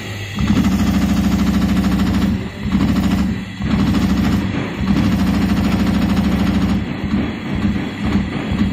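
JYL-A5-1 CNC leather punching machine's punch needles stamping holes through leather at high speed: long runs of rapid, evenly spaced strokes, broken by two short pauses and turning uneven near the end.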